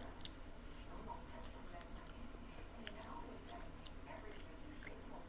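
Close-up chewing of pizza, with irregular wet mouth clicks and smacks over a steady low hum.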